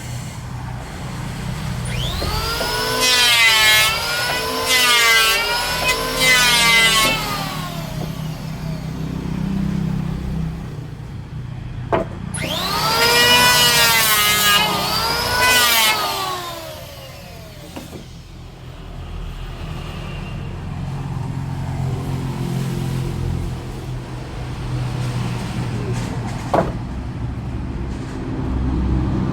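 Woodworking power tool motor working wood, its pitch swelling up and dropping back in about a second each time, in two spells. Between the spells there is a low steady hum and a few sharp knocks.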